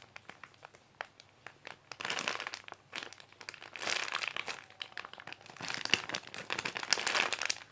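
Plastic packaging crinkling and rustling as it is handled, in three or four bursts with short quiet gaps between.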